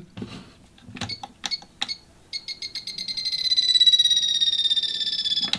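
A few soft clicks, then a small RC steering servo buzzing with a pulsing high whine for about three seconds, falling slightly in pitch, as the transmitter's steering wheel is turned.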